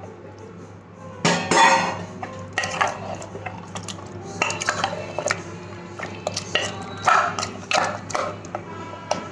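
A spoon stirring chicken and masala in a cooking pot, with irregular scrapes and clinks against the pot starting about a second in.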